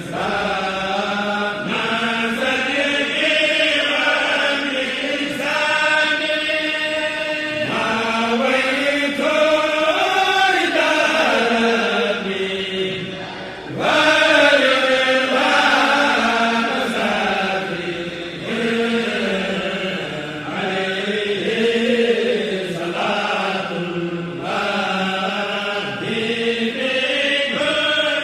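Chanting of a Mouride xassida, an Arabic religious poem, in long drawn-out melodic lines with gliding pitch. The chanting dips briefly about halfway through, then a new verse begins louder.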